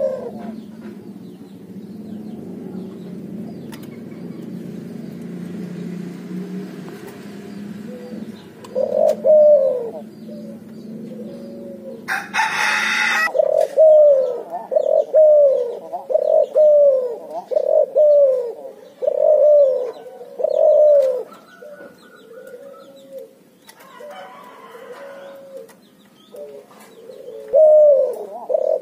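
A cuhu, a hybrid of ringneck dove and spotted dove, cooing over and over, about one coo a second, with a low hum under the first few seconds. A short rustling burst comes near the middle, and the coos fade for a few seconds before coming strongly again near the end.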